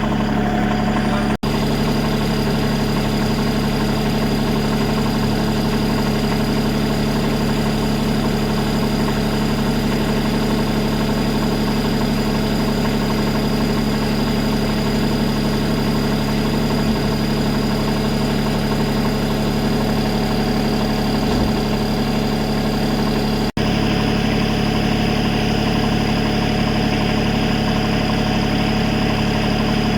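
Diesel truck engine running steadily at idle, with a thin steady high whine over the hum. The sound drops out briefly twice, about a second and a half in and about 23 seconds in.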